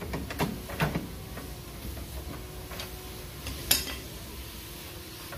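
Metal clinks and knocks from a Hyundai Elantra's front lower control arm being worked by hand under the car: a quick cluster of knocks in the first second, a few lighter taps, then one sharp metallic click near four seconds.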